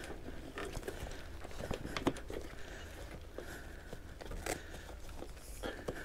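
Canvas boat canopy rustling as its edge is pulled down and hooked onto metal fasteners along the side deck, with a few sharp clicks and knocks as the hooks catch, over a low steady rumble.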